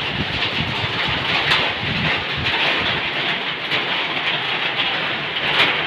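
Heavy rain falling: a steady rushing noise that holds an even level.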